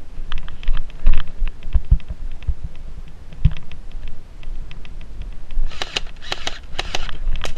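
Irregular sharp clicks and a few low thumps, then a run of louder rustling noise from about six seconds in.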